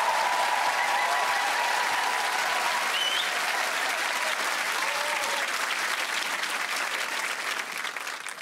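Large studio audience applauding and cheering, with the applause dying down near the end.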